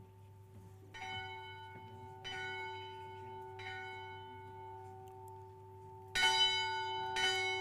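A bell rung by hand, struck five times: three light strokes a little over a second apart, then after a pause two stronger strokes near the end, each leaving a clear ringing tone that hangs on between strikes.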